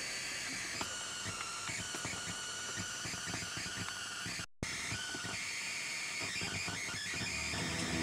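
Car stereo speakers putting out electrical interference from a cheap MP3 player on the aux input, powered through a cigarette-lighter-to-USB adapter: a steady screeching hiss with thin whining tones and irregular ticks. It cuts out for a moment about halfway through, and music starts just before the end. The owner believes the noise is picked up from the car's wiring, from the wireless key fob and push-button start system.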